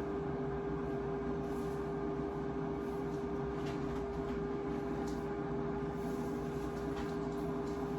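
Steady hum of a running kitchen appliance's motor or fan, one constant pitch over a low rumble, with a few faint ticks.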